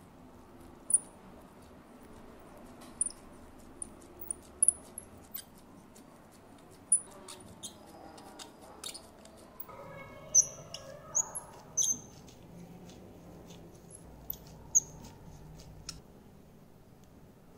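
Small parts being handled in gloved fingers: about a dozen sharp, irregular clicks and ticks with faint high squeaks, from a 1/12-scale model brake disc and a pin-vise hand drill.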